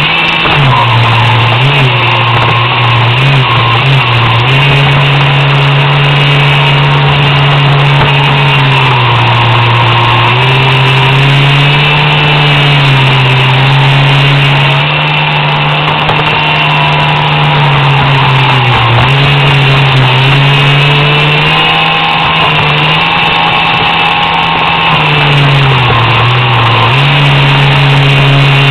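RC swamp buggy's 3900 kV inrunner brushless motor, geared 3.6:1 to a 9x9 propeller and run on a 4S LiPo, running hard as a loud droning whine. The pitch holds mostly steady but dips and recovers every few seconds as the throttle is eased and opened again.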